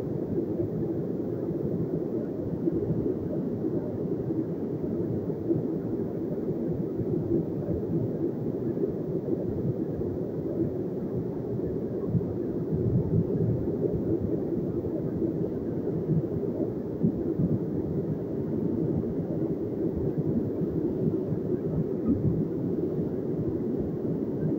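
Muddy flash-flood torrent rushing down a steep mountain stream: a steady, heavy, low rush of churning water.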